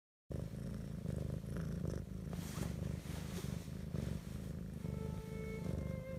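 Domestic cat purring close up, a low, steady rumble that swells and eases with each breath. Faint violin music comes in near the end.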